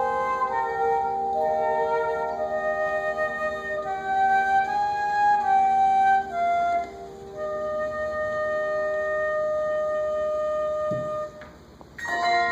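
Handbell choir playing a slow passage of held, ringing notes. The music drops away briefly near the end, then a loud new chord of bells is struck.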